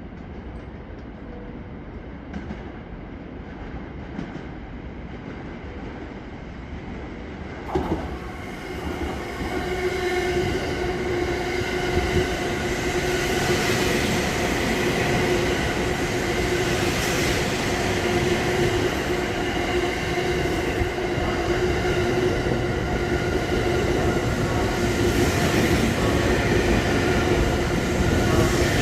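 A 285-series Sunrise Seto/Izumo sleeper train passing through the station at low speed. The sound grows steadily louder as it comes in, with a steady hum over the wheel and rail noise. A short loud sound comes about 8 seconds in.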